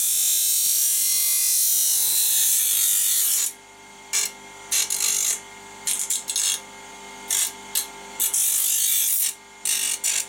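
Bench grinder running with a steady hum while the cut edge of a metal cheese grater is pressed to its wheel to smooth it: a continuous grinding hiss for about three and a half seconds, then a string of short grinding touches.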